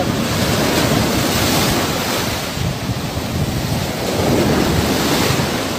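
Surf breaking steadily on a sandy beach, with wind buffeting the microphone.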